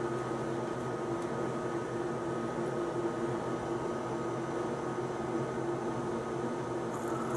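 A steady machine hum with several held tones, unchanged throughout, and a few faint high ticks near the end.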